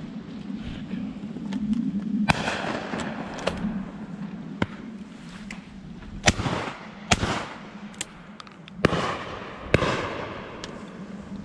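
Shotgun fire on a driven pheasant shoot: a scatter of shots from the line of guns, many faint and distant, several loud and close, each loud one trailing off in a rolling echo. Two of the loudest come close together about six and seven seconds in.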